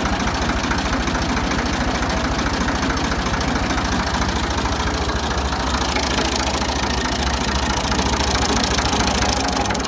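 Ford 2000 tractor's diesel engine running steadily.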